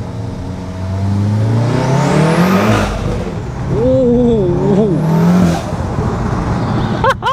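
A Stage 3 big-turbo MK7 Volkswagen Golf R's 2.0-litre turbocharged four-cylinder accelerating hard, heard from inside the cabin. The engine note rises, breaks at a gear change about three seconds in, then rises again and eases off after about five and a half seconds, with a high turbo whistle climbing over each pull. The driver lets out a short "ooh" about four seconds in.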